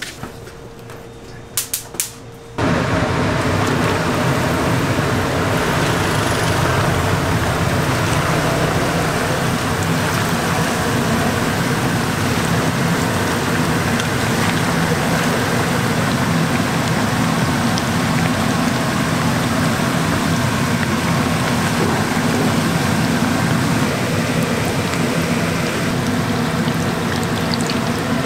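Breaded croquette toast slices deep-frying in hot oil: a steady, dense sizzle that starts abruptly about two and a half seconds in, after a few clicks.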